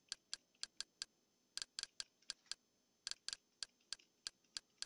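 Faint, sharp clicks of step-by-step menu navigation, about four a second with two short pauses, as a Kodi add-on list is scrolled down one entry at a time.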